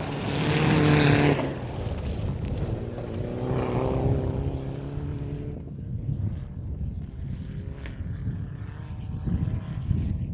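Mitsubishi Lancer Evolution rally car passing at speed on a gravel stage, engine at full throttle with gravel and tyre hiss, loudest in the first second and a half. The engine note carries on as the car drives off up the stage and fades after about five seconds, leaving wind noise.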